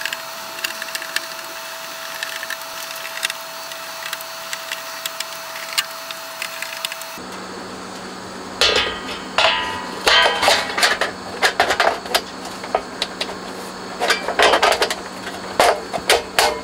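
A faint steady tone for about the first seven seconds. Then, over a low hum, come irregular clusters of sharp clicks and knocks as the Soundcraft EFX12 mixing desk's casing and screws are handled and the lid is refitted.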